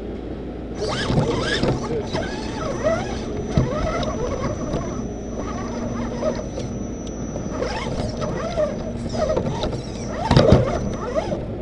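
RC rock crawler's electric motor and gear drive whining, the pitch rising and falling with the throttle, with squeaks and rattles from the chassis and a knock about ten seconds in. The sound comes from inside the crawler's body.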